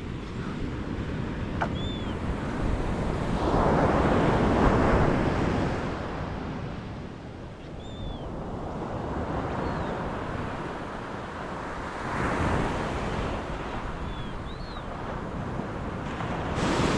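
Surf breaking and washing up a beach, swelling louder about four seconds in and again after twelve seconds. A few short high chirps sound over it.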